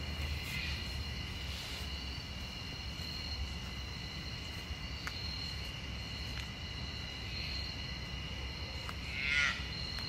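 Insects calling steadily in the summer woods, a continuous high drone in two pitches, over a low rumble. A short buzzy call stands out about nine seconds in.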